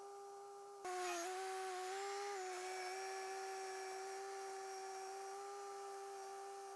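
Compact tractor engine running steadily at one pitch as it drags a harrow across tilled ground. About a second in it grows louder and rougher, the pitch dipping slightly, then holds steady.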